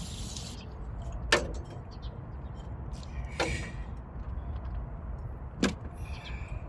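Three sharp clicks or knocks, about two seconds apart, over a steady low rumble.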